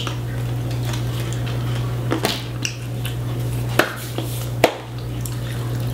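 Candy wrapper being handled, with a few short crinkles and clicks about two, four and four and a half seconds in, over a steady low hum.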